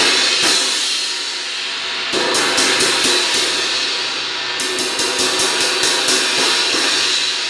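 A 16-inch crash cymbal with a crack in its edge, struck and left ringing, then hit again in two runs of quick strokes, about four a second, over a sustained wash. This is its sound before the crack is cut out.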